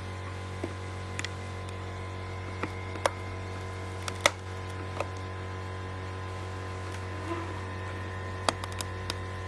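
Scattered sharp clicks and taps of a screwdriver prising at a watch winder's plastic cup, working the old cup loose from the double-sided tape that holds it, the loudest click about four seconds in. A steady electrical hum runs underneath.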